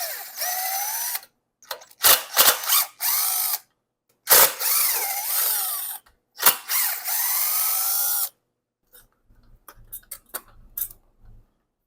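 Power drill-driver backing out the screws that hold a recoil starter on, in about four short runs of a whining motor whose pitch rises and falls. Faint clicks of handling follow near the end.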